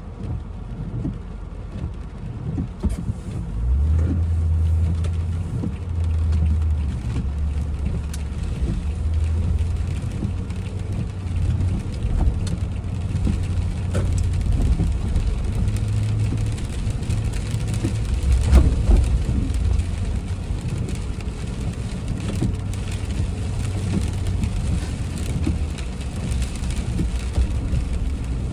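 A car driving in the rain, heard from inside: a low engine and road rumble that grows louder about four seconds in, with rain pattering on the car.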